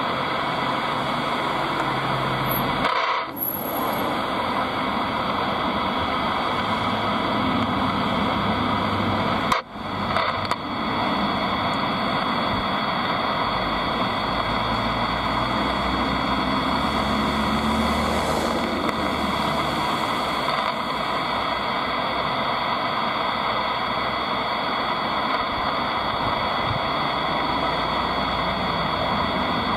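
Ham radio receiver hissing with static, steady and band-limited like radio audio, cutting out briefly twice, about three seconds and about ten seconds in.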